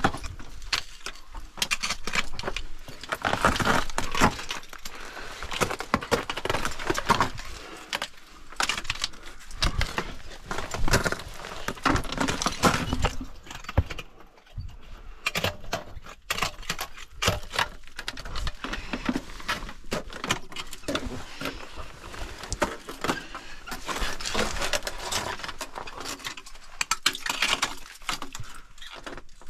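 Metal ice-climbing hardware jangling and clinking, with many irregular knocks throughout.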